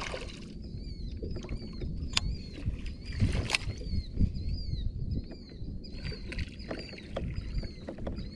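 Water and handling sounds on a fishing kayak, with a couple of sharp knocks against the hull about two and three and a half seconds in. A high chirp repeats about twice a second in the background.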